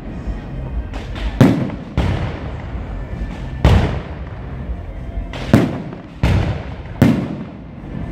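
Aerial firework shells bursting in the sky: a string of sharp bangs at irregular intervals, each trailing off in an echo.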